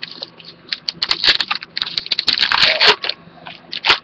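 Foil trading-card pack wrapper being torn open and crinkled by hand, a quick run of crackling tears from about one second in to about three seconds in.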